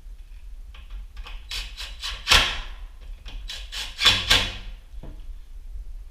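Cordless drill driving screws for cabinet pulls in two short bursts of rapid clicking, about two and four seconds in.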